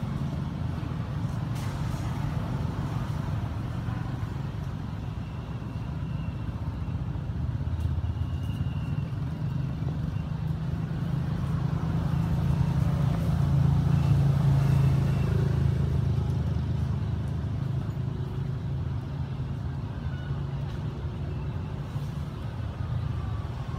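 Low, steady rumble of a motor vehicle's engine that swells louder toward the middle and then eases off.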